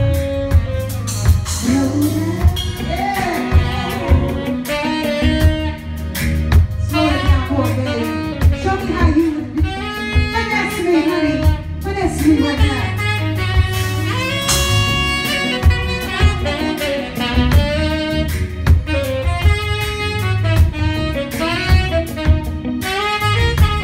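Live R&B band with a tenor saxophone solo over drums, bass and keyboard; the sax plays bending, wailing melodic runs over a steady drum beat.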